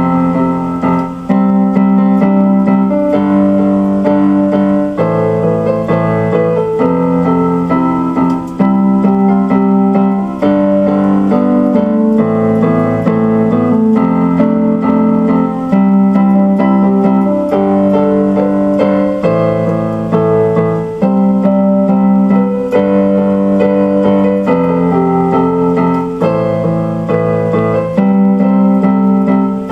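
Electronic keyboard in a piano voice playing slow instrumental music: sustained chords over low bass notes, changing every second or two.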